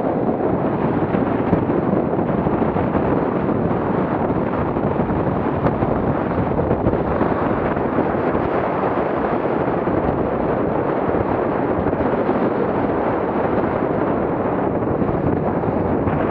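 Wind buffeting the microphone: a steady, loud rushing noise with no clear engine note or distinct splashes.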